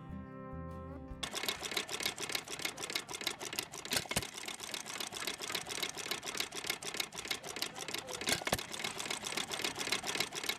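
Acoustic guitar music ends about a second in. After that comes a rapid, continuous mechanical clicking and rattling.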